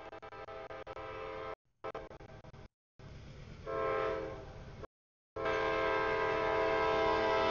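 CSX freight locomotive's air horn blowing for the grade crossing as the train approaches. It is louder for a moment about halfway, then sounds a loud sustained blast near the end. The sound cuts out abruptly a few times.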